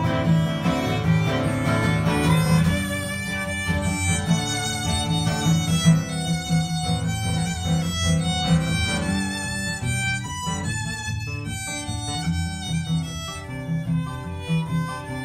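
A fiddle plays a melody over a strummed acoustic guitar.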